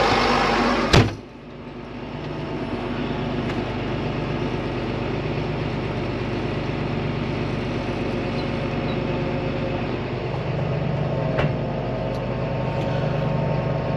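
Tractor engine running steadily. There is a sharp knock about a second in, after which the sound turns duller, and a lighter click near the end.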